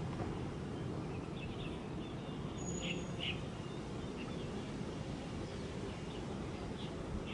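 Steady low outdoor background rumble with a few short bird chirps over it, clustered about one to three seconds in and again near the end.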